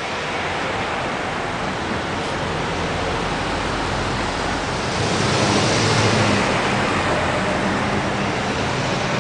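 Steady road noise of a moving vehicle, tyre rush with a low engine hum, growing louder about five seconds in before easing slightly.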